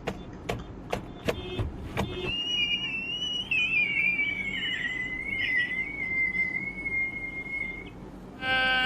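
A few sharp clicks, then a single high, wavering whistle-like tone that slides slowly downward for about six seconds and stops. Just before the end, a pitched voice-like wail begins.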